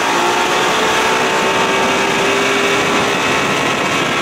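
1992 Johnson 60 hp three-cylinder two-stroke outboard running steadily at planing speed, its pitch holding level, over the rush of water and wind past the boat.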